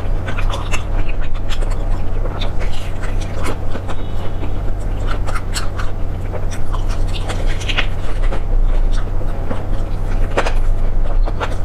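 Close-miked eating sounds: irregular wet clicks, smacks and crunches of chewing, over a steady low hum.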